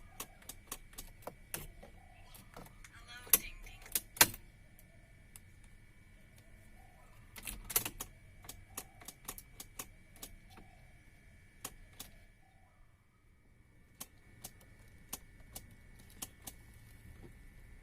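Irregular sharp clicks with a few louder knocks, three of them standing out about three, four and seven and a half seconds in, as of tools and small parts being handled.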